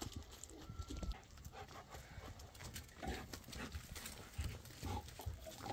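Footsteps on gravel: a person walking, with a string of irregular crunching steps.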